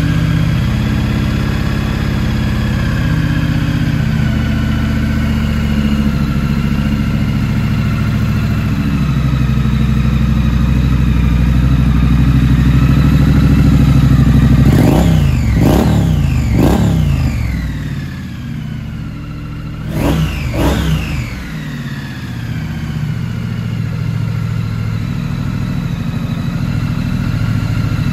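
Triumph Scrambler 900's parallel-twin engine idling just after starting. Partway through it is given several quick throttle blips in two groups, a few seconds apart, each rev rising and falling straight back to idle.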